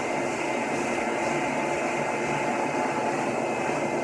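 A large pet grooming dryer running steadily through its hose: rushing air with a steady motor whine, blowing the bulk water out of a wet dog's thick double coat.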